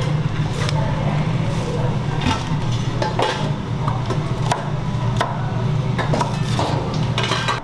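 A kitchen knife chopping green onion stalks on a plastic cutting board: sharp knocks at an uneven pace, about one or two a second, over a steady low hum.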